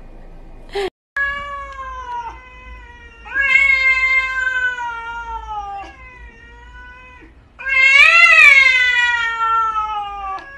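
Cat yowling in a standoff with another cat: four long, drawn-out calls, each sliding down in pitch, the last and loudest rising then falling near the end.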